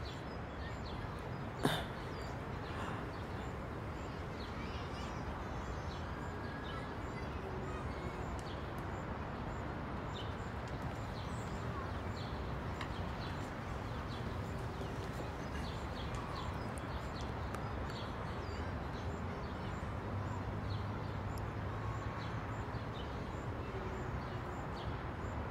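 Quiet, steady background hiss of room tone, with one sharp click about two seconds in and a low hum that gets stronger near the end.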